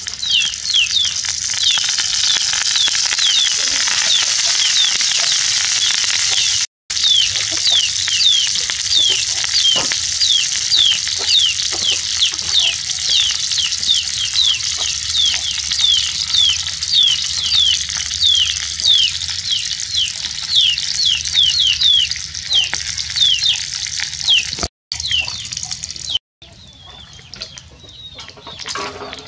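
A piece of fish frying in hot oil in a pan, a loud steady sizzle, over which a rapid run of short high chirps, about three a second, repeats throughout like a bird peeping. The sizzle falls quieter near the end.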